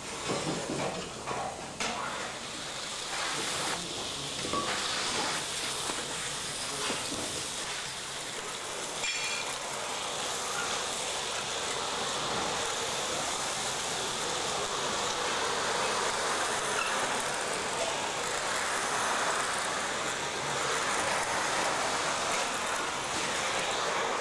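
Rustling and a few light knocks as a cloth dust sheet is folded up. Then a wet-and-dry vacuum cleaner runs steadily, its floor nozzle sucking dust and plaster crumbs off a concrete floor.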